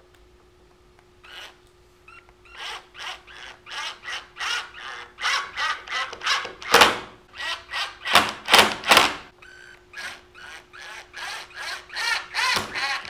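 Cordless driver running screws through a steel caster plate into a wooden beam, in short trigger bursts of about three a second. The bursts grow louder toward the middle, pause briefly, then resume as the screw is driven home.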